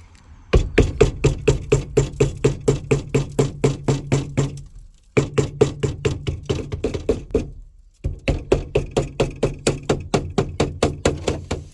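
A small motor running with a steady hum and a regular mechanical clicking, about four clicks a second. It comes in three runs with two short breaks.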